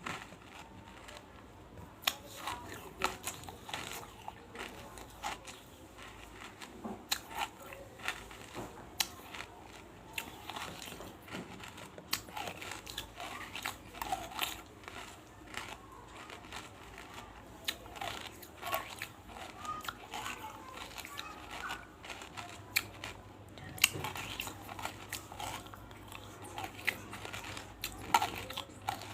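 Pieces of banslochan (tabashir, the chalky silica from bamboo) crunching and crumbling as they are bitten and crushed in the mouth close to the microphone: irregular sharp cracks, often several a second.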